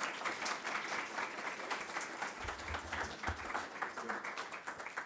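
Audience applauding, beginning to die away near the end, with a few low thuds about halfway through.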